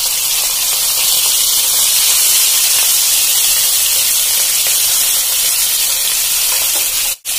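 Two whole pomfret sizzling steadily as they shallow-fry in hot mustard oil in a kadai, with a brief gap in the sound near the end.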